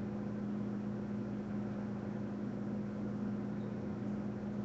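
Steady low hum with an even hiss of room background noise, unchanging throughout.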